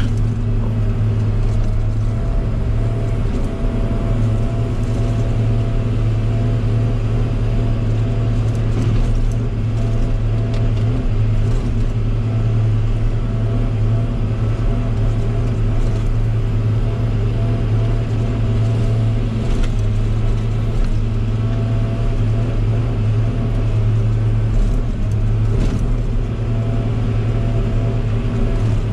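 Log loader's engine running with a steady, unbroken drone while the boom is worked, with a few faint clicks and knocks of the machinery.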